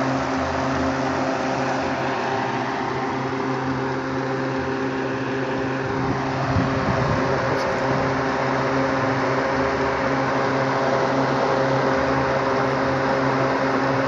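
A pair of electric radiator cooling fans (motoventiladores) from a truck running off a battery at full speed: a steady electric-motor hum with a rush of air from the spinning blades. This is a test run after the fan motor was fitted with new carbon brushes.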